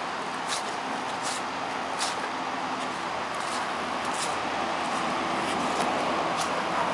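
Steady rushing of the flood-swollen creek after a day of heavy rain, growing a little louder towards the end. Footsteps on wet, leaf-covered grass click in irregularly, about once a second.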